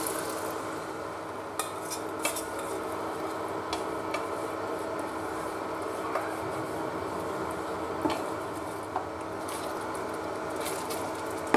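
Boiled dal poured into a pot of fried masala and stirred in with a spatula: scattered knocks and scrapes of the spatula on the pot over a steady sizzle.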